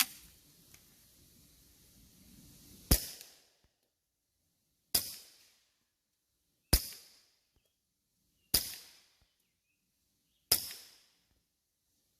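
Five suppressed 9mm pistol shots fired about two seconds apart, each a sharp crack that trails off briefly.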